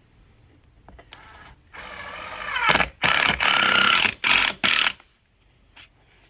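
Handheld power tool motor run in a series of trigger pulls: a longer run whose pitch drops as it bogs near its end, then four short bursts.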